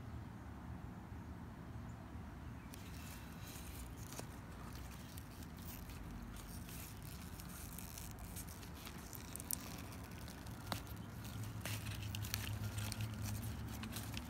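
Beet leaves and stems rustling and crackling as a hand grips and handles them in a pot of soil, starting about three seconds in, with a few sharp clicks. A steady low rumble runs underneath.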